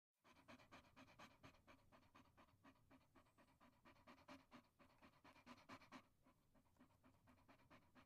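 Dog panting in quick, even breaths, about four or five a second, growing weaker after about six seconds.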